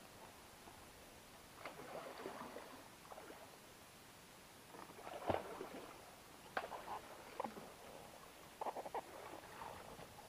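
Short bursts of splashing and clicking every second or two as a hooked wels catfish thrashes at the surface beside a float tube while the spinning reel is worked. The sharpest splash-like knock comes about five seconds in.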